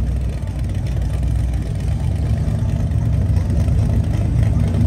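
Lifted mud truck's engine idling with a deep, steady rumble.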